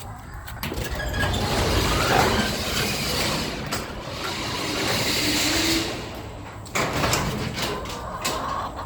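An overhead door being pushed open: a long rumbling, rattling scrape, then a second shorter stretch after a brief pause.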